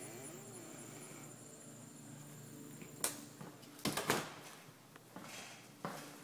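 Steady high insect chorus over faint outdoor background, cut off abruptly about halfway. Then footsteps and a few sharp knocks on a hardwood floor indoors, the loudest a cluster of knocks around the middle.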